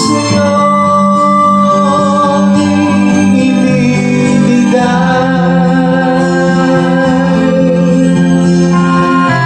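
Music: a song with a singing voice over held chords.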